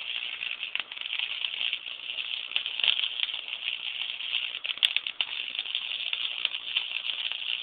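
Electric welding arc crackling steadily, with scattered sharper pops.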